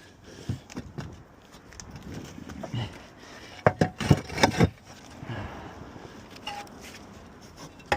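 Roof tiles being handled and set down, knocking and scraping against each other in a few sharp clacks, the loudest run of about four coming midway.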